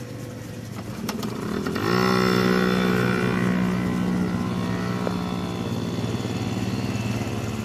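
A four-wheeler (ATV) engine running close by, rising in pitch and getting louder about two seconds in as it is throttled up, then holding a steady pitch as the quad rides past.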